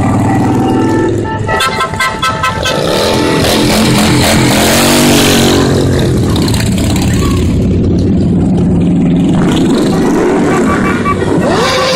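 A stream of motorcycles passing close by, their engines running and revving, loudest a few seconds in. Horns toot in the first couple of seconds and again near the end.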